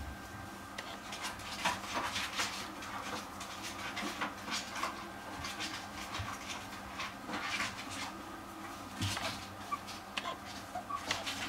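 Puppy panting in irregular quick breaths, with a few short faint squeaks near the end.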